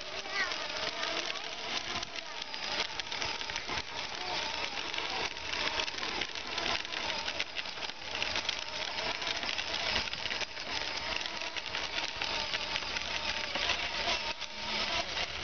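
Battery-powered children's ride-on toy motorcycle driving along: its small electric gear motor gives a steady whine, and its hard plastic wheels rattle over cracked asphalt.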